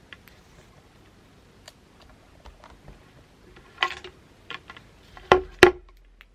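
Small hard objects being handled at close range: scattered light clicks, a brief clatter, then two sharp knocks in quick succession near the end.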